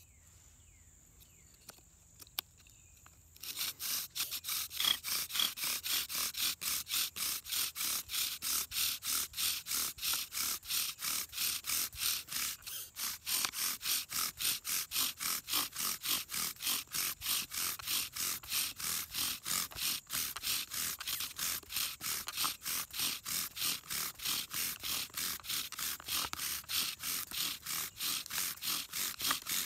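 Bow drill friction fire being worked: the bow saws back and forth and the wooden spindle grinds in the fireboard hearth under a fatwood bearing block. The rhythmic scraping comes at roughly three strokes a second, starting about three seconds in, with a brief break near the middle, as the spindle heats the hearth toward an ember.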